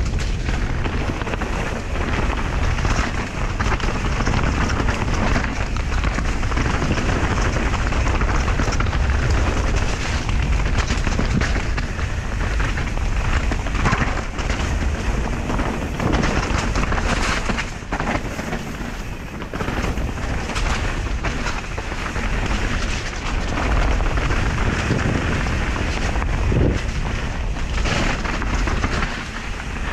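Wind noise on a GoPro's microphone mixed with the rumble and rattle of a downhill mountain bike running fast over wet dirt and rock, with frequent sharp knocks from bumps.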